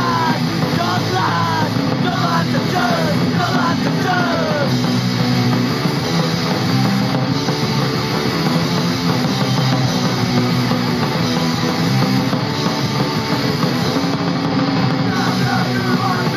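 Street punk song playing from a 7-inch vinyl record on a Technics SL-J11 linear-tracking turntable. Full band, steady and loud, with gliding pitched lines over it for the first few seconds and again near the end.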